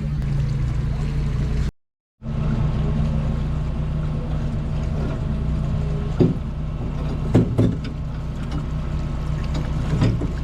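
Boat engine running steadily at trolling speed, a low even hum heard from on board. It cuts out briefly about two seconds in, and a few short knocks and clatters come about six, seven and a half, and ten seconds in.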